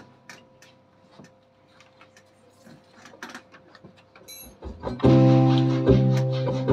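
For the first few seconds there are only small clicks and knocks over a faint steady tone. About five seconds in, a live song starts: a Yamaha synthesizer keyboard plays sustained chords over a deep bass note, and acoustic guitar strings are picked.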